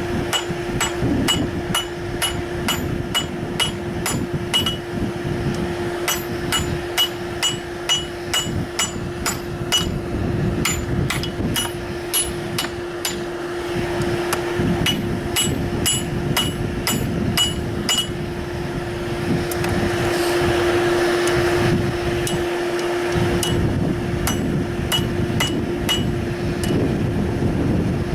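Blacksmith's hammer forging on an anvil, about two to three blows a second with a bright ring on each, in runs with short pauses. The blows stop after about eighteen seconds, leaving a steady hum.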